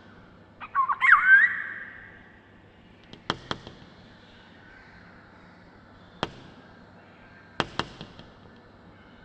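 A black-hooded oriole gives one short, fluty call with sliding pitch about a second in. Sharp clicks follow, a pair at a time, three times.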